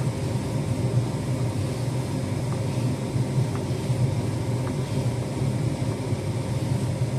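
Steady low mechanical hum, with a few faint taps of a kitchen knife on a wooden chopping board.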